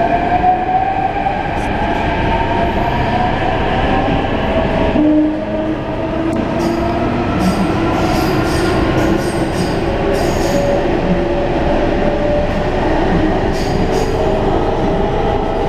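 Delhi Metro Hyundai-Rotem train heard from on board: the traction motors whine and climb in pitch as the train picks up speed, and the whine eases about five seconds in. Steady running noise of wheels on rail follows, with short high squeaks and clicks scattered through it.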